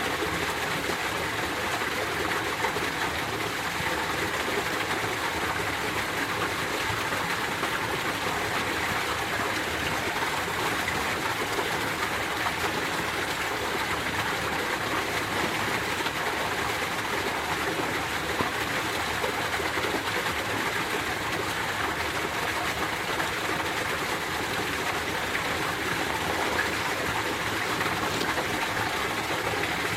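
Winter mountain stream flowing, a steady, unbroken rush of water.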